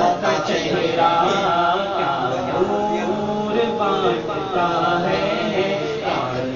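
A man's voice singing an Urdu manqabat (devotional praise poem) in long, held melodic phrases, in a chant-like style.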